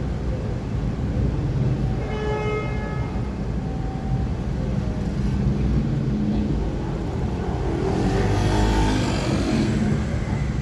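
Dense city rush-hour traffic rumbling steadily. A car horn sounds once for about a second, about two seconds in. Near the end the traffic noise swells louder as a vehicle goes by.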